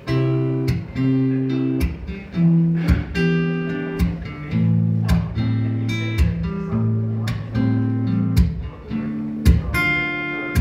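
Acoustic guitar strummed live, chord after chord in a steady rhythm with the chords changing every second or so: the instrumental intro of a song before the vocals come in.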